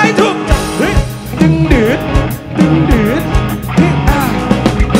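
Live rock band playing: drum kit keeping a steady beat under electric guitar, with a male vocalist singing over it.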